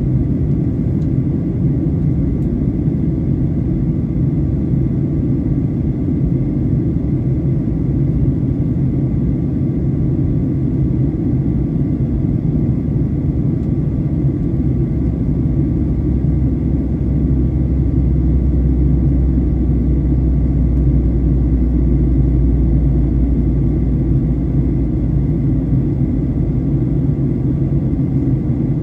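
Steady cabin drone of a Boeing 737-800 in flight, heard inside the cabin over the wing: a deep rumble from its CFM56-7B engines and the airflow, with faint steady whining tones above it. A deeper hum grows stronger through the middle of the stretch and eases again near the end.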